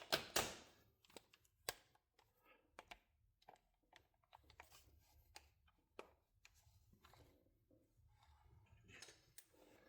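Faint, scattered metallic clicks from working at a socket stuck on a ratchet, whose snap ring has jammed. A slightly louder sound comes just after the start, and a few clicks come close together near the end.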